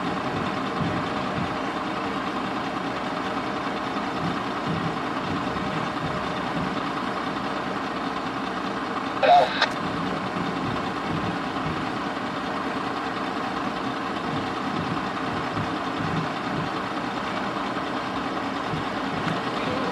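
Freight train of tank cars rolling past: steady noise of steel wheels running over the rails, with a brief sharp squeal and clank about nine seconds in.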